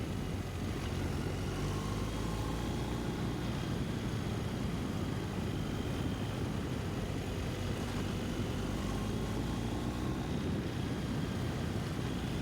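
BMW R 1250 GS boxer-twin engine running steadily under way, heard from a helmet-mounted microphone along with wind noise.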